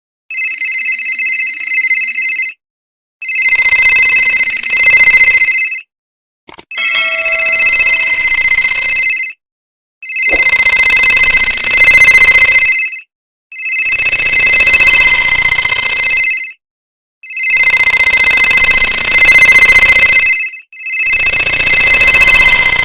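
Cell phone ringtone, an electronic ring repeating seven times with short pauses between rings. After the first ring it grows louder and harsher, with a rough noise under the tones.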